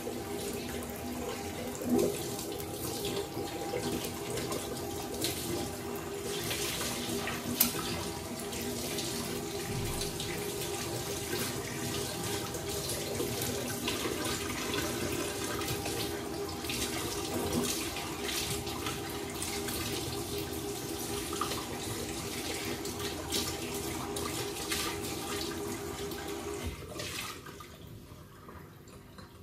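An egg frying in hot oil in a pan, sizzling and spattering steadily with many small crackles over a steady hum. The sizzle dies down near the end.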